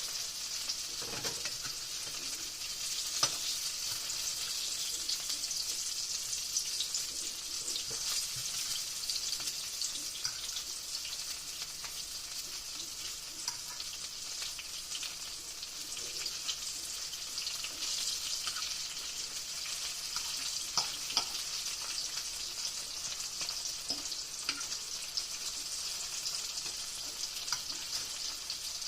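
Sliced green tomatoes pan-frying in hot oil: a steady sizzle with scattered small crackles.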